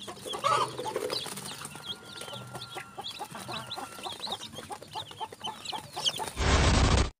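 A brood of newly hatched heritage and fancy chicken chicks peeping, many short high cheeps overlapping without pause. About six seconds in, a loud rushing noise covers them for under a second and cuts off abruptly.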